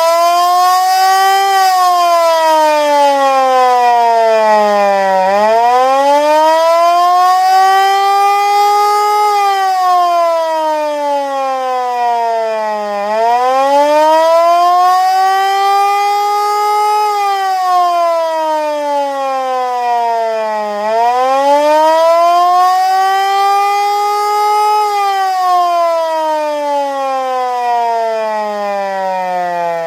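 Gents 1479 air raid siren sounding a wail under an automatic wail controller. Its several-toned note rises for about four seconds, then falls for about four, over and over, three full cycles after falling from its first peak.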